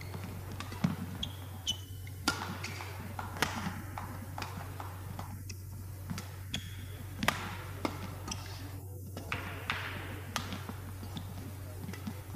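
Badminton rally: sharp racket strikes on the shuttlecock about every second or so, with short squeaks of court shoes on the floor, over a steady low hum.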